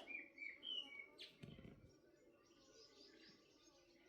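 Faint birdsong: a few short, quick chirps in the first second, with a dull thump about a second and a half in.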